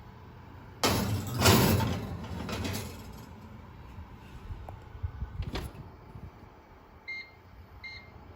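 A sliding, rattling clatter starts about a second in and lasts about two seconds, followed by a click. Near the end come two short electronic beeps from a kitchen appliance's control panel.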